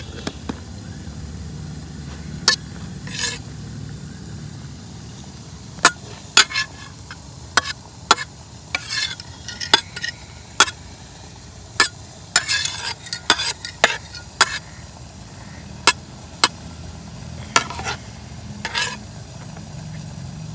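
Metal spatula scraping and tapping on a plate while breaking up and fluffing freshly steamed puttu: irregular sharp clicks with a few short scrapes, over a low steady hum.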